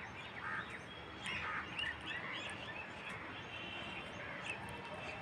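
Faint chirping of small birds, many short calls scattered and overlapping.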